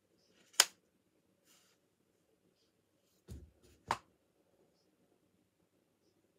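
A paper comic magazine being handled and put down: a sharp slap about half a second in, then a soft thump and a second sharp slap near four seconds.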